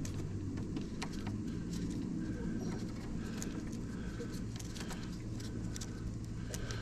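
Scattered light clicks and taps of small tools and brake parts being handled while a caliper is fitted, over a steady low hum, with faint bird calls in the background.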